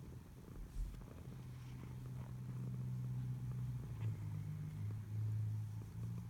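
Tortoiseshell cat purring steadily close to the microphone while being stroked, the purr growing louder partway through, with a soft low bump about a second in.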